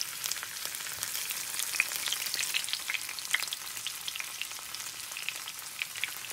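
Pre-boiled potato halves frying in shallow oil in a pan: a steady sizzle with frequent small pops and crackles.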